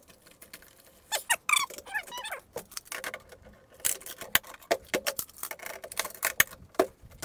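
Cardboard ammunition boxes being pushed and shuffled into a steel ammo can, with a squeak as they rub about a second in, followed by many quick knocks and clicks as the boxes and steel cans are handled.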